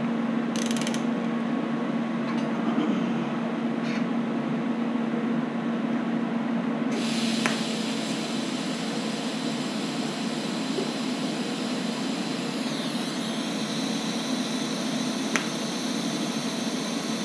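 Low steady hum with a couple of clicks, then about seven seconds in a TIG welding arc strikes and keeps up a steady high hiss with a faint buzz as small steel gussets are tack-welded onto the bracket.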